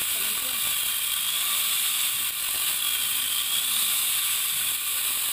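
Electric angle grinder fitted with a Hoyoma mini chainsaw attachment, running and cutting through a mango branch. It gives a steady high-pitched whir with chain noise, its pitch dipping and rising slightly as the cut loads it.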